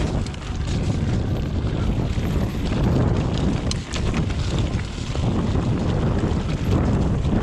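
Wind buffeting the microphone during a fast mountain-bike descent, with tyre rumble over the trail and scattered short knocks and rattles.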